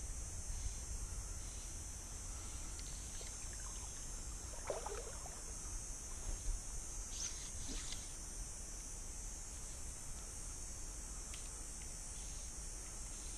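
A steady, high-pitched chorus of insects over a low rumble, with a few faint brief sounds in the middle.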